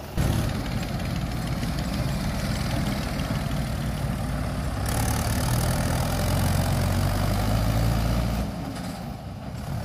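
Farm tractor's diesel engine running under load as it hauls a loaded trolley up a dirt slope, a steady deep engine note. It grows louder about halfway through and drops away near the end as the tractor moves off.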